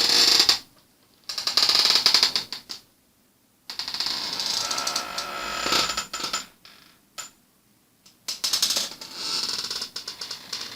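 Wooden creaking in about five separate strokes, each a fast run of tiny ticks: a short one, a longer one, a long one of about three seconds that turns to a squeal near its end, a brief one, and a last long one that trails off.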